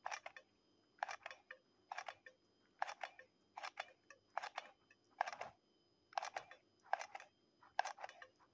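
A large hot glue gun being pumped to lay glue along wine corks: a short clicking crackle from the trigger and feed about once a second, a dozen times over.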